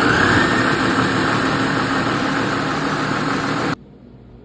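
Ninja countertop blender running at full speed, grinding soaked rice and water into a batter. Its motor climbs in pitch as it spins up, runs steadily, then cuts off suddenly about three-quarters of the way through.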